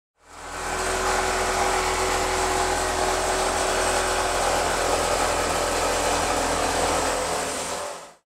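Handheld electric power tool running steadily as it cuts into a steel heating-oil tank, fading in at the start and out near the end.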